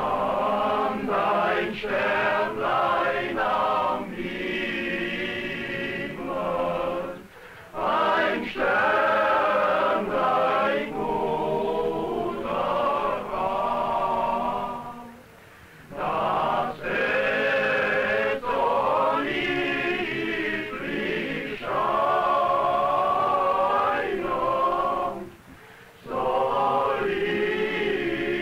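Men's choir singing unaccompanied, in long phrases with short breaks about 7, 15 and 25 seconds in.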